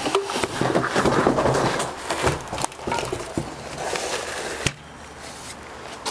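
Plastic packaging crackling and cardboard scraping as a folded Lectric XP 3.0 e-bike is pulled up out of its shipping box, with small knocks of handling. The noise drops off after a knock about three-quarters of the way through.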